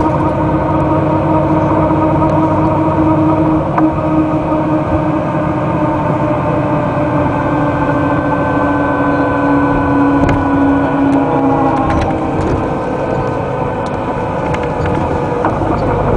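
Den Oudsten Alliance B96 city bus under way, heard from inside the passenger cabin: steady engine and drivetrain hum. Its pitch eases slowly down partway through, with a few short knocks and rattles.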